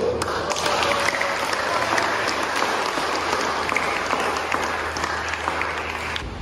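Audience applauding: a dense, even clapping that eases off slightly and stops near the end.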